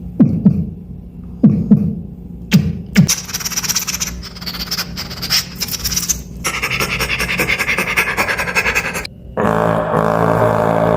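Beatbox mouth sounds in sequence. First come deep kick-drum thumps, falling in pitch, in three pairs. Then a fast scratch-like run of clicks and hiss, and a rapid buzzing rattle. From about nine seconds in there is a steady, droning low hum, like a didgeridoo.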